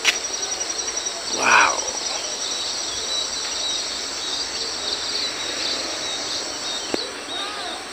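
Rural outdoor ambience: insects keeping up a fast, high trill, with birds chirping now and then. A man says "wow" about a second and a half in.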